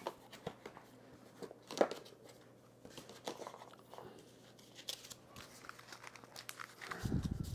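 A small cardboard box being opened and its packaging handled: scattered rustling and small clicks, with a sharper tick about two seconds in and a low dull bump near the end.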